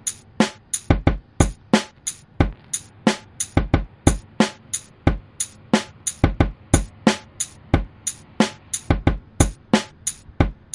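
Background music built on a drum-machine beat: steady, punchy kick and snare hits with crisp high ticks.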